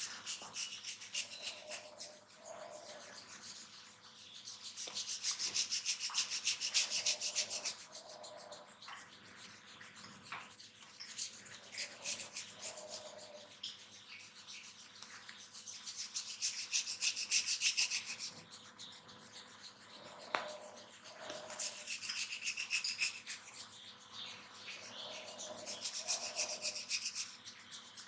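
A barber's hands rubbing and scratching briskly, in several bouts of a few seconds each with the strokes coming very fast and evenly.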